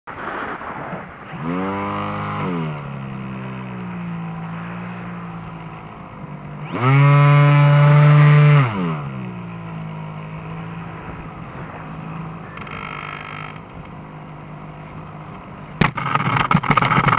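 Electric motor and propeller of a Lanyu FPV Raptor RC plane whining, heard from the onboard camera. Its pitch rises as the throttle opens about two seconds in, and it gives a louder, higher burst for a couple of seconds about halfway through before throttling back. Near the end the plane hits the asphalt in an emergency landing, with a clatter of knocks and scraping.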